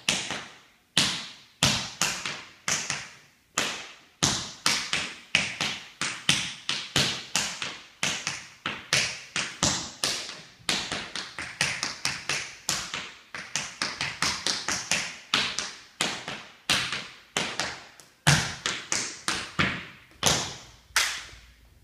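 Tap shoes striking a wooden floor in a continuous tap-dance routine: sharp metal taps in uneven rhythmic groups of a few per second, each ringing briefly, stopping just before the end.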